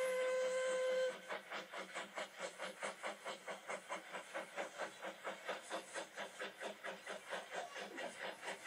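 Steam locomotive sound effect heard through a tablet's speaker: a steam whistle held on one steady note, cutting off about a second in, then even rhythmic chuffing at about four puffs a second.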